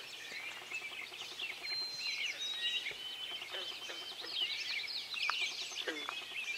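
Dawn chorus of many songbirds singing at once: dense overlapping chirps and trills, with a couple of long, steady whistles.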